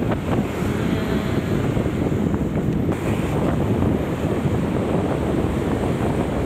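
Wind rushing over the microphone of a moving motor scooter, a steady loud rumble with no breaks, with the scooter's own running and road noise mixed in beneath.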